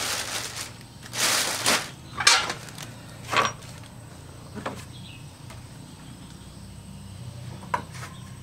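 Hand tools being rummaged through and handled, with a few short metal clatters and scrapes in the first few seconds and another near the end, over a low steady hum.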